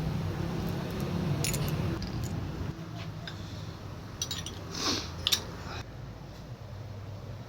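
A few short metallic clicks and clinks of small parts and hand tools being handled, over a low, steady background hum.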